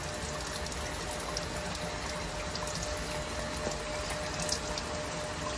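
Fanuc Series 180is-WB CNC wire EDM machine running its automatic edge-finding cycle, feeding wire toward the workpiece: a steady rush of water and pump noise with a faint steady hum.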